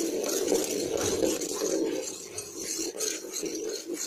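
Jaggery syrup boiling vigorously in a metal pot, a dense irregular bubbling and popping, with a spoon stirring through it; the syrup is being cooked down to its setting consistency.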